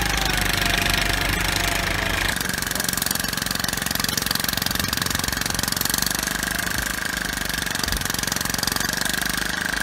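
Construction machinery running steadily: a fast, even mechanical pounding with a steady high whine over it, its sound shifting a little over two seconds in.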